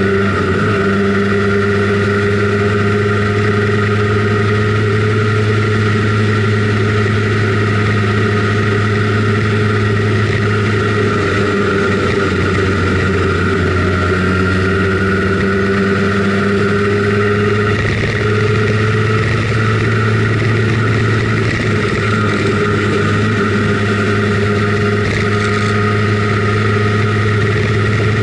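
Simson Schwalbe KR51/2 scooter's 50 cc two-stroke single-cylinder engine running steadily under way, heard from on board. Its pitch rises and falls gently with the throttle.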